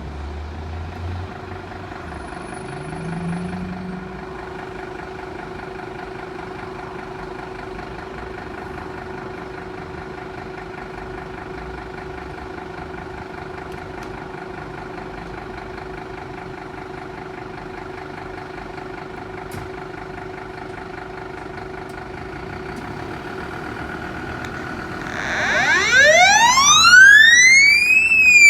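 Fire engine running steadily with an even hum. About 25 seconds in its siren starts, a loud wail rising in pitch to a peak and then beginning to fall.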